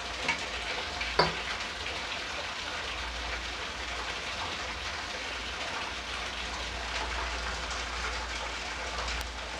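Hand kneading a crumbly wheat-flour and ghee dough in a steel mixing bowl: a steady crackling, rustling squish as the dough is pressed and worked, with a couple of light knocks against the bowl in the first second or so.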